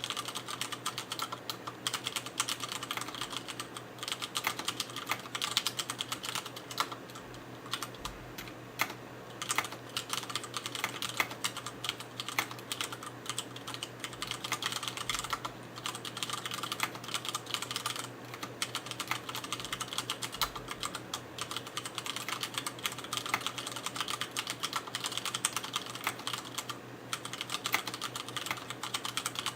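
Continuous fast typing on an mStone Groove87-FR4 mechanical keyboard with Cherry MX Brown switches and ABS keycaps: a dense, steady stream of key clacks with no real pauses.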